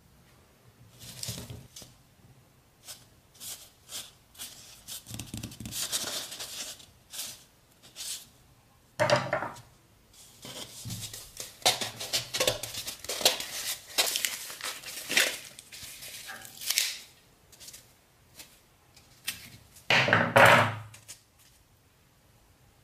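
Knife sawing into a fake peach with a crumbly white foam-like inside, making scratchy crackling and crunching strokes, with clicks of cutlery against a china plate. The loudest crunch comes near the end.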